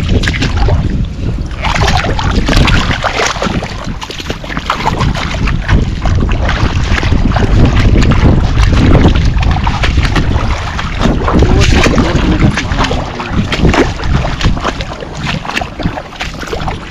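Wind rumbling on the microphone, with many short knocks and rustles on top.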